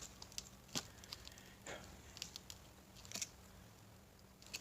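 Faint, scattered clicks and light rustles of compressor motor parts being handled, with a steady low hum underneath.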